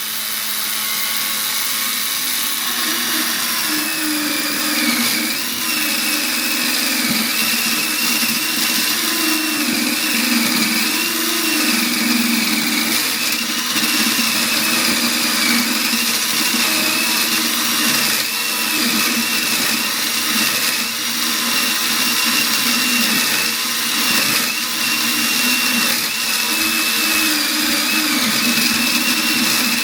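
Motorised Lego table saw running under load, its plastic Lego blade cutting into a plastic brick. A steady, loud motor-and-gear whine wavers up and down in pitch as the load changes. The builder puts the strain down to more trouble with the plastic gears.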